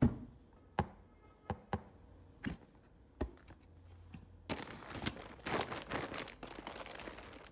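Toy packaging being handled: a few sharp taps and clicks on the box, then from about four and a half seconds in, a stretch of tearing and crinkling as the wrapping is pulled open.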